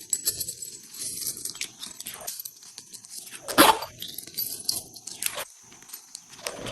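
Slime being squeezed and pressed by hand: scattered small crackling pops, with one loud squelching pop about three and a half seconds in.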